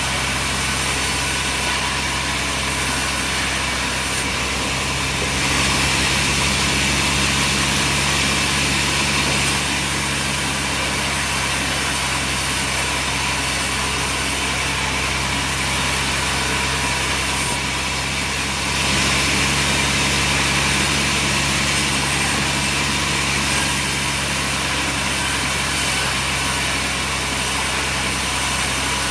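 Sawmill machinery running steadily: an engine hum under a hissing noise, which gets a little louder for a few seconds about five seconds in and again about nineteen seconds in.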